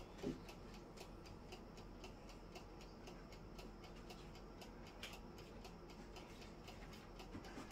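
Faint, steady ticking, roughly four to five even ticks a second, with one soft knock just after the start.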